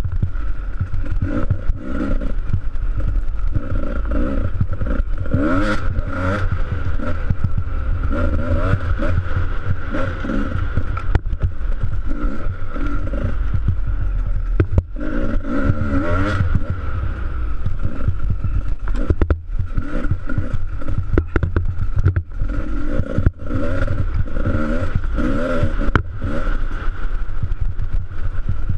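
Dirt bike engine revving up and down over and over as it is ridden hard along a rough snow trail, with frequent knocks and rattles.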